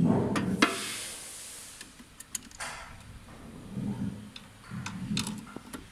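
Small sharp clicks and light rustling from hands working wires into the terminals of a mixer control switch, with a few soft handling knocks.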